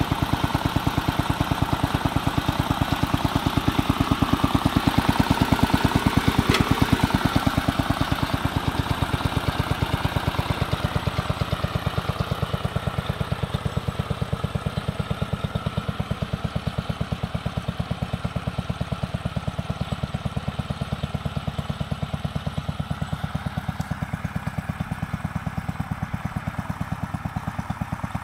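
1964 Ward Squire 9 garden tractor driving off in first gear, its gasoline engine (swapped in from a vintage generator) running with a steady, even, rapid beat. It grows a little quieter in the second half as the tractor moves away.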